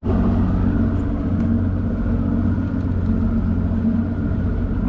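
Boat's outboard motor running steadily under way, an even, deep drone.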